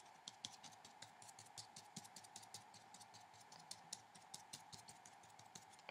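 Faint, irregular light taps of a watercolour brush dabbing paint onto paper, several a second, over a faint steady hum.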